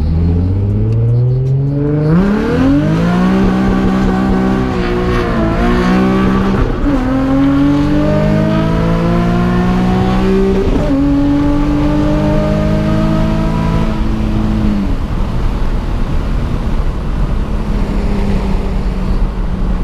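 Nissan 350Z's V6 engine accelerating through the gears: its pitch climbs in each gear and drops at each of several upshifts. It holds a steady pitch for a few seconds, then settles lower about three-quarters of the way in.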